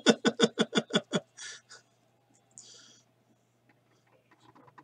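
A man laughing, a quick run of about ten 'ha' pulses that ends a little over a second in. Then a few faint breaths and small clicks.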